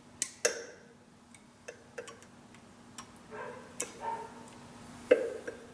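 Irregular sharp metallic clicks and taps from needle-nose pliers working the fuel return plugs out of the return ports on a Cummins 8.3 cylinder head, the loudest click about five seconds in.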